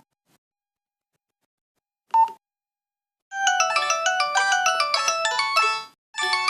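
Old Samsung MIDI ringtone played on a Nokia 112 phone: a fast melody of many short, bell-like notes starts about three seconds in and stops near the end. It is preceded by a single short beep about two seconds in.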